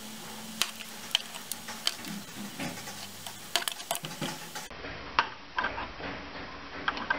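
Handling noise: the plastic plug and power cord of a heated desoldering pump clicking and tapping irregularly against a wooden workbench.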